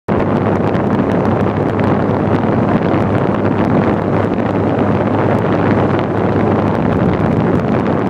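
Electric fan running close to the microphone: a steady, loud rush of blown air buffeting the mic, with a low motor hum underneath, that sounds like an airplane.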